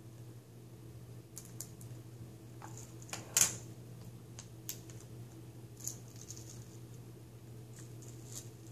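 Small plastic clicks and scratches from hands working at the lower corner of a laptop's screen bezel, with one sharper click about three and a half seconds in, over a steady low hum.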